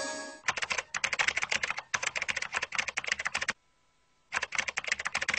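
Rapid clicking of keys being typed on a keyboard, in two quick runs with a short silent pause between them about three and a half seconds in.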